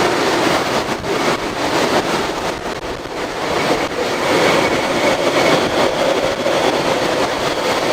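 Hurricane-force eyewall wind with driving rain: a loud, dense rushing noise that swells and eases with the gusts.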